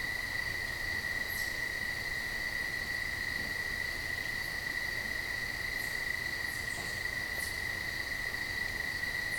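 A steady, unbroken high-pitched whine with a fainter, higher overtone, and a few faint ticks scattered through it.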